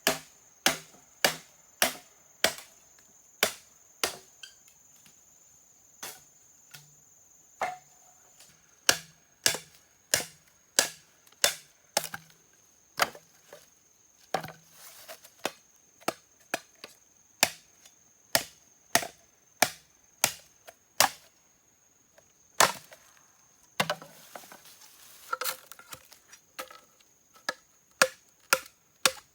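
Chopping wood with a blade: sharp, separate strikes at about one to two a second, with a few short breaks and a brief patch of rustling near the end.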